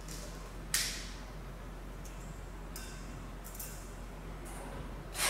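A few sharp metallic clinks as the metal fitting of a coiled gas inlet pipe is handled and fixed onto the machine's connector. The loudest comes about three-quarters of a second in and another near the end, over a steady low hum.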